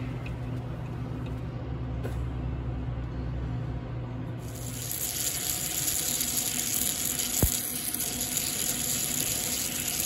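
A low steady machine hum, then from about four seconds in a steady hiss and sizzle. This is flushing water and spark erosion as an EDM drill's brass tapping electrode burns a thread into a metal plate. There is a brief knock about seven and a half seconds in.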